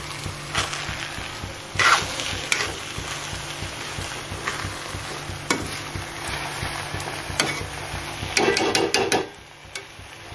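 A metal spoon stirs and scrapes through hot cooked cumin rice in a metal pan on the stove, over a steady low sizzle. Single scrapes come every second or two, with a quick run of them about eight seconds in.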